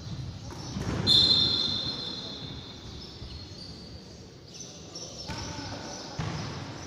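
A referee's whistle blows one long, loud blast about a second in, stopping play. A basketball bounces on the court amid the voices of players and onlookers.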